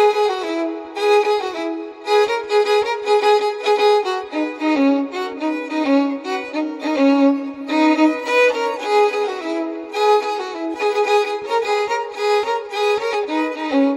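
Background music led by a violin playing a quick, continuous melody.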